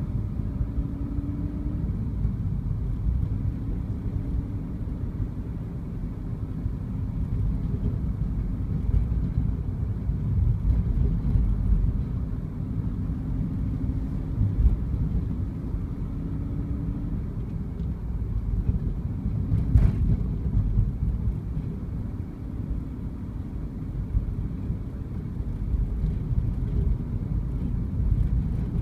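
Moving car heard from inside the cabin: a steady low rumble of engine and road noise, with a faint engine hum that rises and falls. One sharp click or knock comes about twenty seconds in.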